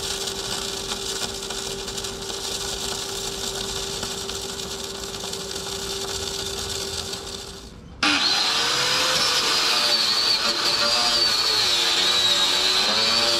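Electric arc welding, laying beads to pad-weld up a rust-thinned steel deck: a steady hiss with a steady low hum. About eight seconds in it cuts suddenly to a louder power tool with a wavering whine.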